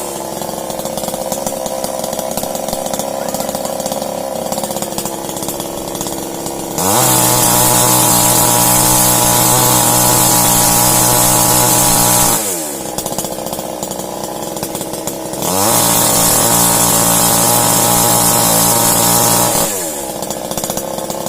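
Chainsaw engine idling, then revved up to full throttle and held for about five seconds, dropping back to idle, then revved and held a second time for about four seconds before falling back to idle near the end.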